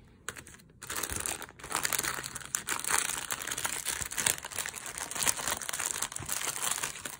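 Clear plastic cellophane bag crinkling and crackling as paper stamps in a vellum envelope are pushed back into it. The bag crumples because its adhesive strip is in the way. The crinkling starts about a second in, after a brief pause, and then goes on without a break.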